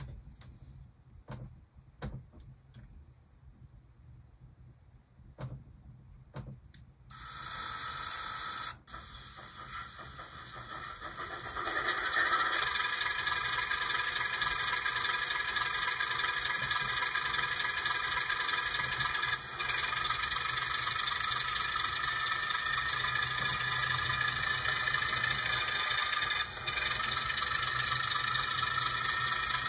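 A Digitrax SDXH166D sound decoder's diesel locomotive prime mover sound starting up: after a few faint clicks, the start-up begins about seven seconds in, builds, and settles into a steady idle from about twelve seconds.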